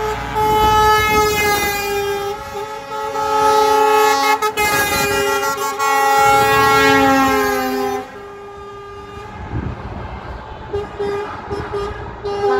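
Truck air horns sounding in long held notes, several pitches at once, for about eight seconds, then fainter broken honks, with loud horns starting again near the end.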